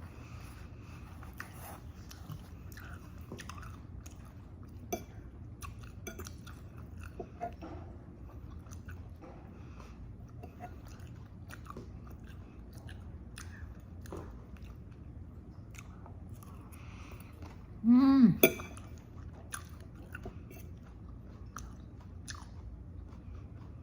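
A person chewing and biting crunchy food close to the microphone, with many small wet clicks of the mouth. About three-quarters of the way through comes one brief, loud, pitched sound.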